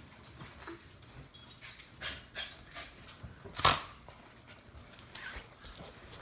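A dog whimpering and making short yips, with one much louder yip about three and a half seconds in.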